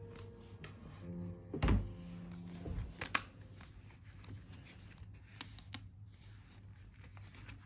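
Paper rustling and being handled, with scattered light clicks and taps, like pages of a paper journal being turned and pressed. There is a soft thump a little under two seconds in. Soft background music fades out in the first few seconds.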